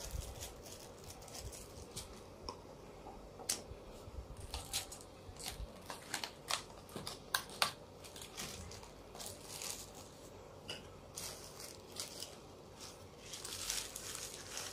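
Clear plastic packaging and bubble wrap being handled, crinkling. A run of sharp clicks and crackles comes in the middle, and a softer burst of crinkling comes near the end.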